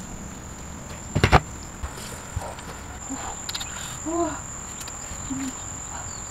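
Insects, likely crickets, keep up a steady high-pitched buzz. A sharp knock comes about a second in, and a few short, soft squeaky calls follow around the middle.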